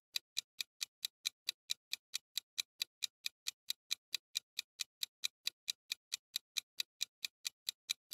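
Clock-style ticking sound effect of a countdown timer: short, even ticks about three a second, stopping right at the end.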